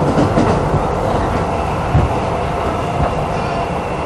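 Renewed Keisei 3500-type resistance-controlled electric train running, heard from inside the passenger car: steady running noise with a few thumps, the loudest about two seconds in.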